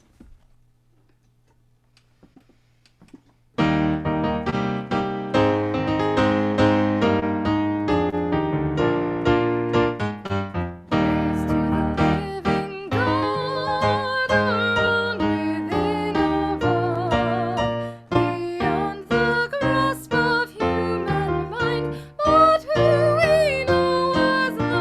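Piano music starts suddenly about three and a half seconds in, after near silence. About halfway through, a second melody line with vibrato joins above the piano.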